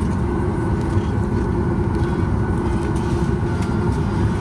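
Cabin noise inside a Boeing 737 MAX 8 with its CFM LEAP-1B jet engines: a steady low rumble with a constant engine hum over it.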